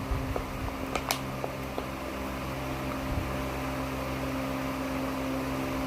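Steady electric hum from a running appliance in the room, with a few faint light clicks about a second in.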